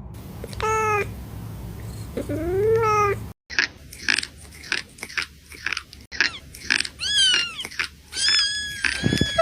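Cats meowing repeatedly. There are two drawn-out calls in the first three seconds, then a quicker run of shorter, higher meows that glide up and down in pitch.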